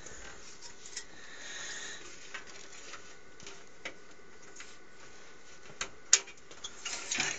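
Hands fumbling with a fan cable and its small plastic connector inside a PC case: scattered light clicks and taps, with one sharper click about six seconds in.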